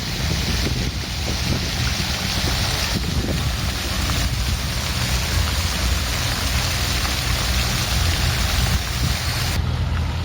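Water fountain splashing steadily, a broad hiss of falling water over a low rumble. The splashing hiss drops away suddenly near the end, leaving the rumble.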